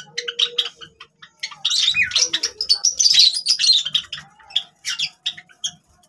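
Several Java sparrows chirping: a quick, busy run of short, high chirps and clicks, thickest through the middle and thinning out toward the end.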